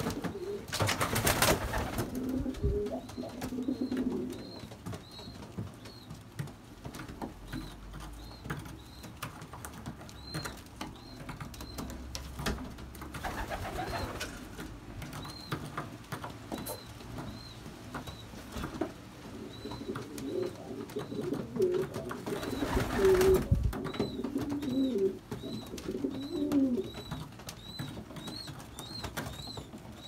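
Domestic pigeons cooing in low, warbling phrases, at the start and again through the second half, with two brief rustling noises. A faint high chirp repeats every second or so throughout.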